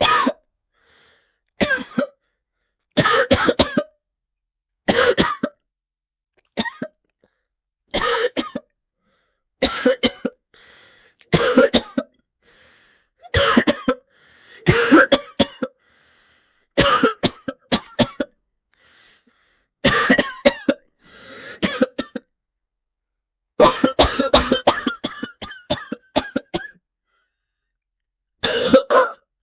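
A man coughing in repeated fits of a few sharp coughs each, the fits a second or two apart with silence between them.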